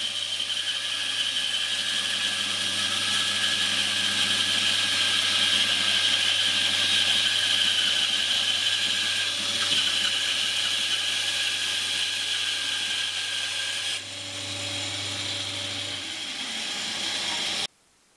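Bandsaw running and cutting through a mahogany block: a steady low hum with a high whine over it. The sound drops a little about 14 seconds in, the low hum stops near the end, and then the sound cuts off suddenly.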